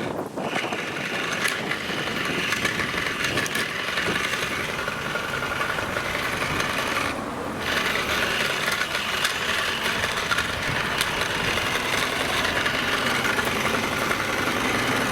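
A child's chainsaw running and scraping against tree bark, a steady buzzing with a rasping rub of the chain on the bark. It breaks off briefly twice, just after the start and about halfway through.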